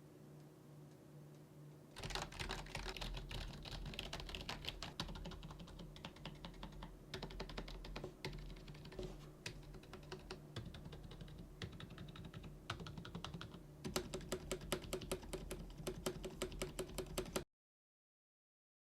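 Typing on a membrane keyboard: a fast, irregular run of keystrokes starting about two seconds in. It grows quicker and louder near the end, then cuts off suddenly.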